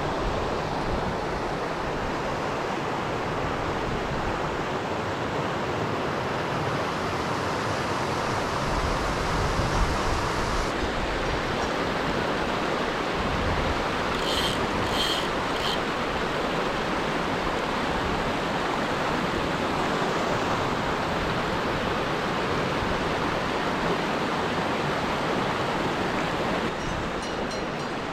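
Steady rush of a mountain torrent flowing over rocks. About halfway through come three short high-pitched sounds in quick succession.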